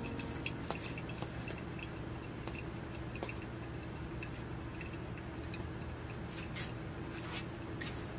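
Thin stream of hot water from a gooseneck kettle pouring onto wet coffee grounds in a paper-filtered pour-over dripper, with coffee dripping into the glass server below. Scattered small ticks and drips sound over a steady trickle.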